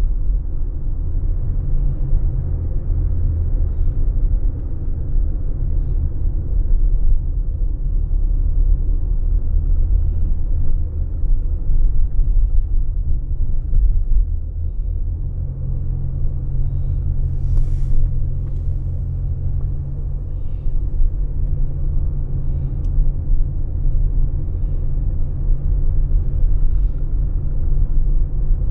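Steady low rumble of a car driving at low street speed, with road noise and engine drone heard from inside the vehicle.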